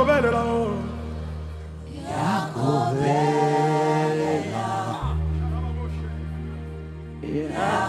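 Live gospel worship singing: sung phrases with long held notes, with the sung voices fading out twice and coming back, over sustained low chords that drop out about two seconds in and return about five seconds in.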